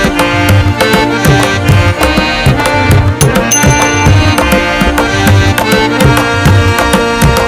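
Background music with a fast, busy percussion beat over sustained melodic tones.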